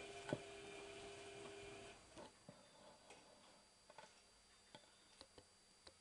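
Tricity Bendix AW1053W washing machine washing a load: the drum motor's steady whine stops about two seconds in, leaving quiet, scattered clicks and knocks as the wet load settles in the drum.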